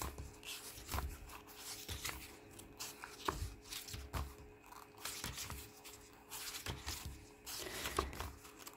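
Pages of a printed photo book being turned by hand: irregular paper rustles and page flicks about once a second, many with a low bump.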